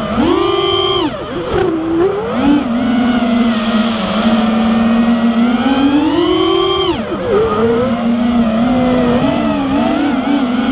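Five-inch FPV racing quadcopter's Emax RB2205 2300 kV brushless motors spinning three-blade Dalprop 5x4.5 props: a steady buzzing whine whose pitch jumps up as the throttle is punched just after the start and drops back about a second in. It climbs again to a high whine around six seconds, falls sharply at about seven seconds, and rises once more near the end.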